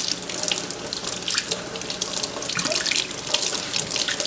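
Kitchen faucet running into a stainless steel sink, the stream splashing unevenly over an ear of corn as hands turn it and pick off the silk.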